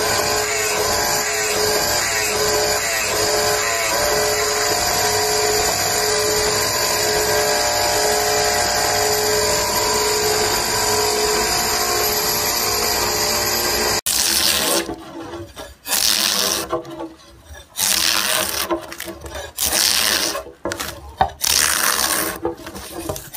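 A grinding machine runs steadily as its wheel grinds the teeth of a gear hob cutter, with a faint regular pulse. About two-thirds of the way in, this gives way to separate scraping strokes of a hand tool shaving a wooden board.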